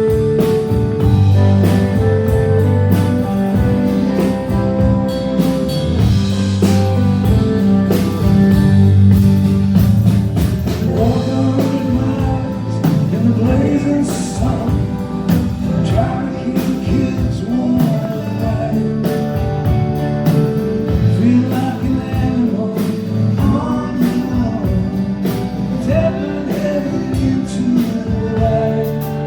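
A live band playing a rock song, with a lead vocal over guitar, bass and drums.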